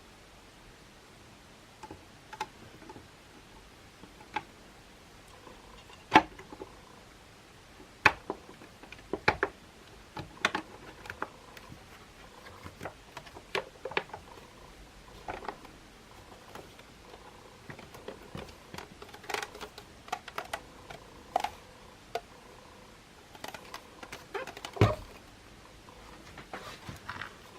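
Irregular clicks, taps and knocks of the plastic housing parts and small tools of a Makita CL107FD cordless vacuum being handled during disassembly, with a heavier knock near the end.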